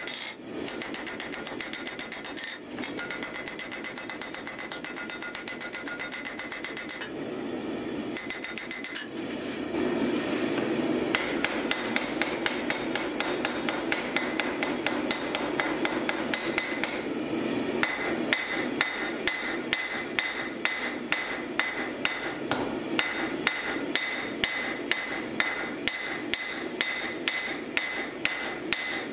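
Blacksmith's hammer striking a red-hot axe head on an anvil: a steady run of ringing blows, about two a second, that starts about ten seconds in, over the steady roar of the forge.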